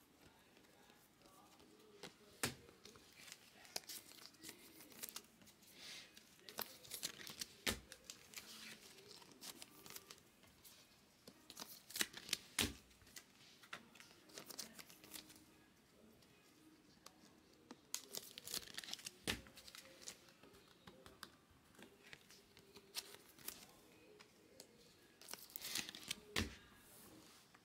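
Plastic wrappers of Bowman Chrome baseball card packs being torn and crinkled, with the cards handled and tapped together: faint scattered crinkling and sharp clicks, busiest about 12, 19 and 26 seconds in.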